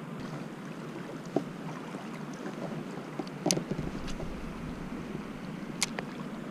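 Steady rushing noise of flowing river water, with sharp clicks from a spinning reel as a light lure is cast: one a little past three seconds in, before the cast, and another near the end as the reel is handled again, plus a fainter tick earlier.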